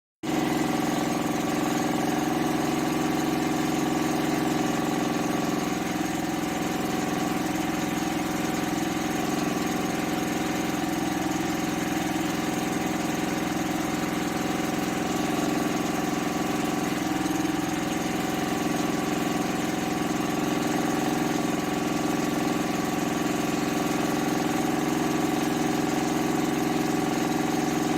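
Engine-driven generator running steadily at constant speed, a continuous even drone.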